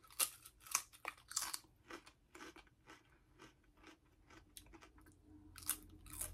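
Lay's Limón potato chips being bitten and chewed: irregular crisp crunches, with a sharper fresh bite near the end.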